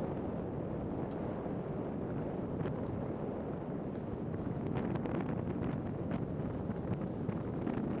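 Wind buffeting the camera's microphone as it moves along with a skier, a steady rumbling rush, with faint scrapes of skis running on groomed snow.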